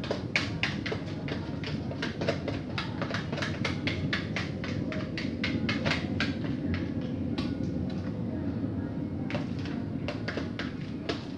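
A utensil scraping cake batter out of a plastic mixing bowl in quick, repeated strokes, about three or four a second, over a steady low hum. The scraping pauses about seven seconds in and starts again.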